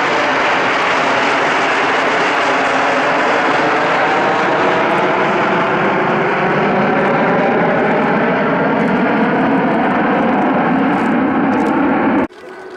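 Six F-15 twin-engine jet fighters flying over in close formation: a loud, steady jet roar whose tone shifts slowly as they pass. It cuts off suddenly near the end.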